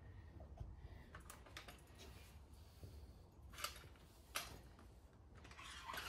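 Faint scattered clicks and light metal taps from handling the wheel and the fittings of a manual motorcycle tire changer, with two sharper ticks a little past halfway.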